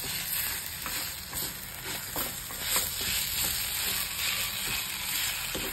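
Mashed potato and sautéed onion-masala being stirred in a hot pan: a steady frying sizzle with irregular short scraping strokes from the stirring utensil.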